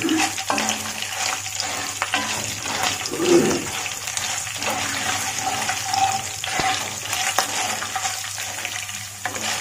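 Oil sizzling in a kadai with many small crackles as a tempering of peanuts, chana dal, urad dal, dried red chillies and green chillies fries, stirred through with a spatula near the end.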